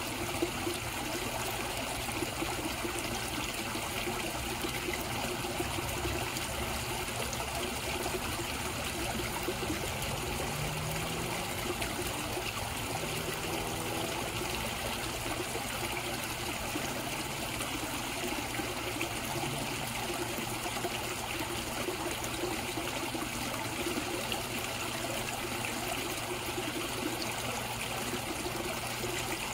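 Water in a koi pond trickling and splashing steadily, without letting up.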